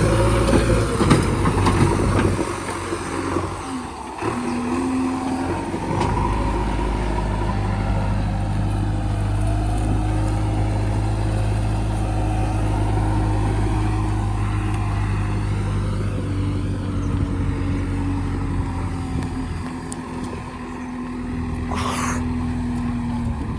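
Heavy diesel machinery engine running under changing load: it dips and shifts pitch in the first few seconds, then runs steadily. A brief high squeal sounds near the end.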